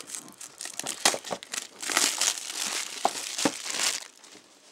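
Thin plastic shrink wrap being torn and peeled off a cardboard product box, crinkling and crackling, with a dense burst of crinkling that stops about four seconds in.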